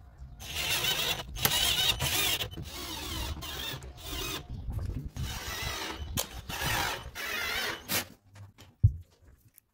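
Cordless drill-driver running in several short bursts, driving screws through steel hinges into the wooden edge of a door. A single knock near the end.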